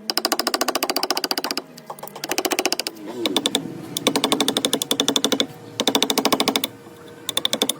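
Rapid, evenly spaced mechanical clicking, about eighteen clicks a second, coming in five short bursts with brief pauses between them.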